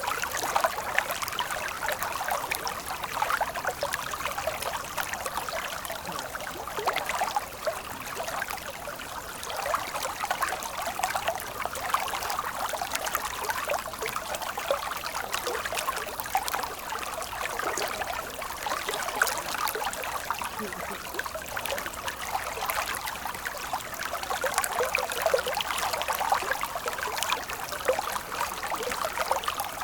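Stream water flowing steadily, a constant trickling and splashing.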